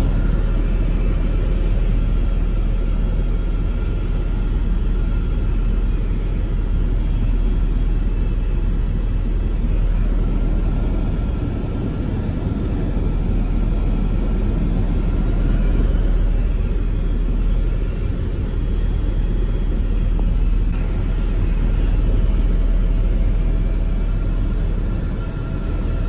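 Helicopter in flight heard from inside its cabin: a steady low rumble of engine and rotor, with a faint steady whine above it.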